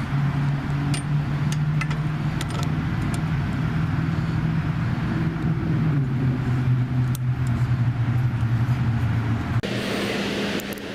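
Steady drone of an engine running, its pitch drifting slightly, with a few sharp clicks over it; near the end it changes abruptly to a different steady hum with more hiss.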